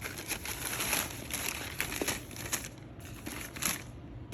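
Paper crinkling and rustling as it is handled, in a quick, uneven run of short rustles.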